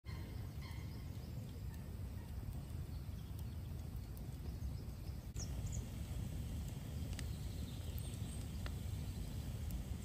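Wood fire of split logs burning, with scattered sharp crackles and pops every second or two over a steady low rumble.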